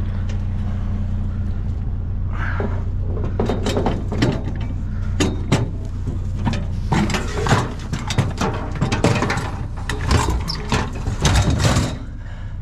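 Irregular clattering, clicking and knocking of scrap items being handled and packed, over a steady low hum.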